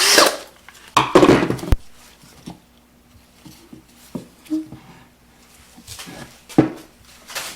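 Small wooden pieces knocking and clattering as they are handled and fitted together, with a brief loud burst of noise about a second in and another near the end.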